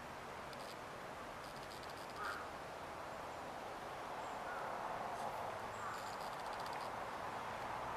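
Faint steady outdoor background noise with a few short bird calls, the loudest one about two seconds in, and brief spells of fine rapid ticking.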